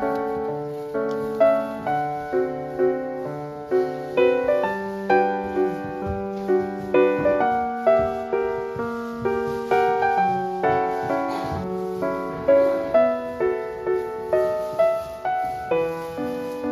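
Background piano music: a gentle melody of steadily struck notes, about two to three a second.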